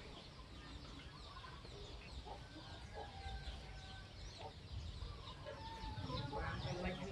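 Chickens clucking, with many small birds chirping in quick high chirps; the calls grow a little louder near the end.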